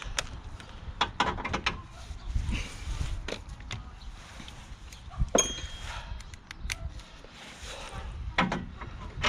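Hand tools and metal parts being handled: scattered clicks and knocks, with one sharper metallic clink that rings briefly about five seconds in.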